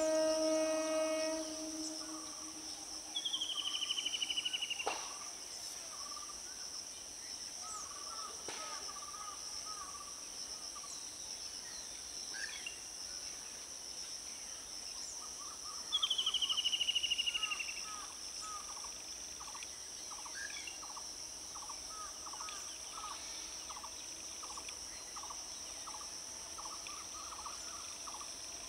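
Steady high-pitched insect buzzing with scattered bird calls; a loud, rapid descending bird trill sounds twice, about three and sixteen seconds in. At the start a distant train horn holds one steady note and stops about two seconds in.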